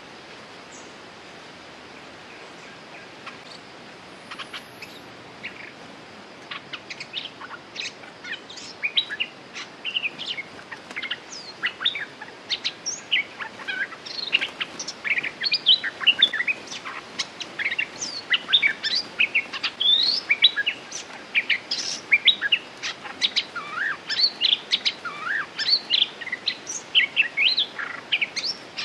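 Bulbuls calling in quick chirps and short up-and-down notes, sparse at first, then busier and louder after several seconds, over a steady background hiss.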